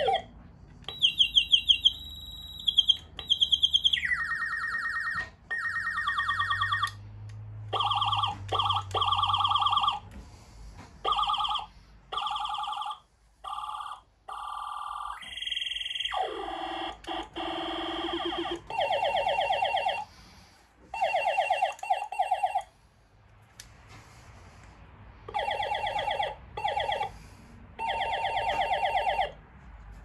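Laser sound effects from the ray gun's home-made sound-effects circuit: rapidly pulsing electronic tones in repeated bursts with short gaps. The pitch jumps from burst to burst as the three potentiometer knobs are turned, with a falling sweep about halfway through.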